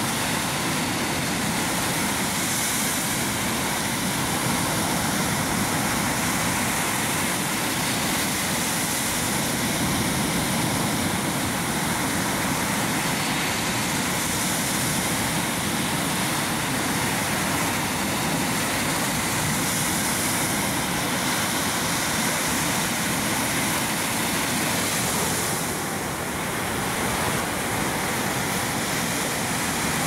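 Ocean surf breaking on a beach: a continuous rush of waves and foaming water, swelling gently every few seconds.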